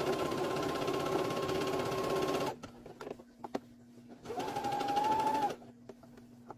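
Electric domestic sewing machine stitching: it runs steadily for about two and a half seconds, then stops, with a few light clicks in the pause. About four seconds in it runs again for about a second, its motor whine rising a little as it speeds up, then stops.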